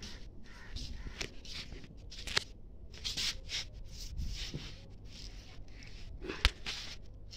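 Footsteps scuffing on a concrete floor: a run of short scraping sounds, about two a second, with a sharp click about two seconds in and a louder one near the end.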